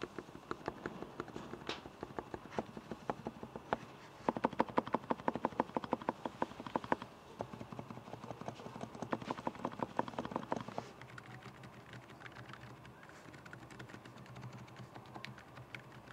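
Mechanical keyboard fitted with Akko silent switches being typed on hard and fast, in a run of keystroke clicks. Two dense flurries come about four seconds in and again around nine to eleven seconds. The typing thins out to lighter, scattered strokes near the end.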